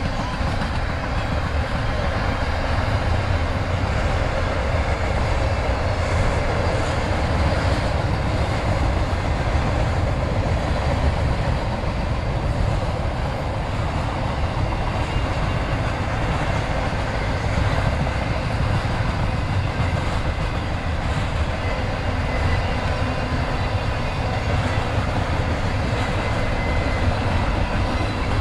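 Double-stack freight train rolling past, a steady, unbroken rumble of wheels on rail.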